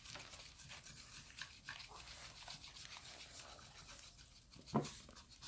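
Scratch-off lottery tickets being scratched, the grey coating scraped off the cards in quick, repeated rasping strokes. A brief louder sound near the end.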